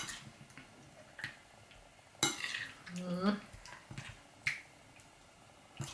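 Metal spoon stirring tofu cubes through thick tomato-paste marinade in a ceramic bowl: about five sharp clinks of the spoon against the bowl, with a short scrape about two seconds in.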